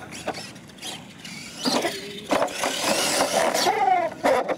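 RC monster truck's motor whining as it revs up and down, with a few hard knocks from the truck hitting the dirt and rolling over. It gets loud about a third of the way in and cuts off near the end.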